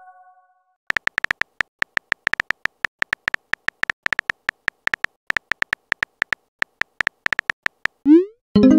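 Fast, irregular clicks of a keyboard-typing sound effect, like taps on a phone keyboard, going on for about seven seconds. The tail of a chime fades at the start, and a short upward swoop comes near the end.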